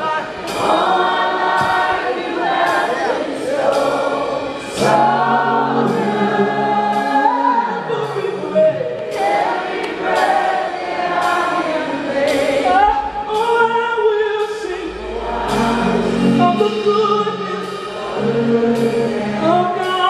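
Live gospel music: voices singing long, gliding held notes over sustained keyboard chords, with a steady beat.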